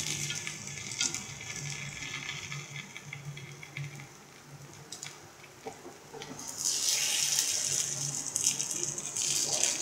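Paniyaram batter frying in oil in a paniyaram pan: a steady sizzle that grows louder about two-thirds of the way through, as the dumplings are turned over, with a few light taps of the wooden turning stick.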